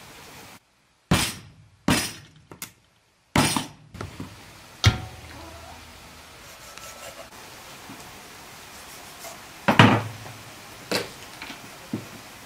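Meat cleaver chopping a whole raw chicken on a wooden cutting board: sharp single chops, a quick run of them in the first five seconds, then three more about a second apart near the end, the first of these the loudest.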